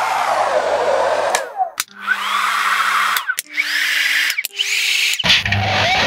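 Hair dryer blowing, digitally modified: its whir swoops up and down in pitch, then is chopped into three short bursts, each with a steady hum stepping higher and each cut off abruptly with a click. A little past five seconds it switches to a deeper, steadier rush, a windy version of the dryer.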